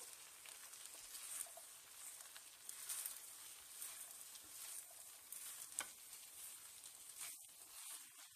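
A spatula stirring and turning cooked rice in a non-stick pan, a faint soft scraping and rustling with a few light ticks, over a faint sizzling hiss from the pan still on the heat.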